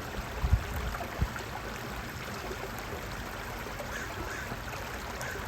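Steady flowing, trickling water, with two brief low thumps in the first second or so and a few faint high chirps around four seconds in.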